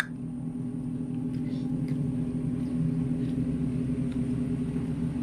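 Steady low hum of a running motor, holding one pitch throughout, with a few faint scuffs over it.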